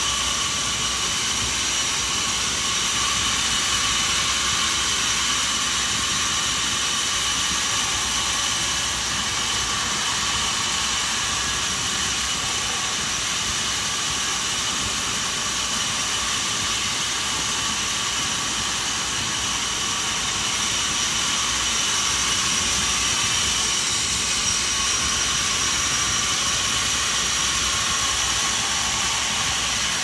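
Large band sawmill running steadily as its blade saws lengthwise through a log, a constant high-pitched whine over a hiss.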